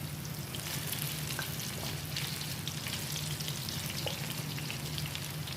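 Small green eggplants frying in hot cooking oil in a wok: steady sizzling with fine crackles, over a low steady hum.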